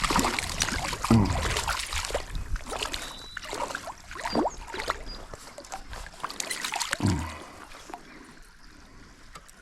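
Water splashing and sloshing in a shallow trout stream as a freshly caught trout is handled and thrashes at the surface, over the steady run of the stream. The splashing is busiest in the first few seconds and dies down, leaving mostly the stream running near the end.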